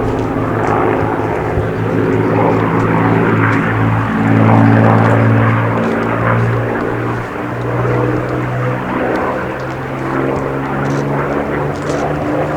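Rolls-Royce Merlin V12 engine of a WWII propeller fighter droning in flight, growing loudest about halfway through as it passes, with small shifts in pitch.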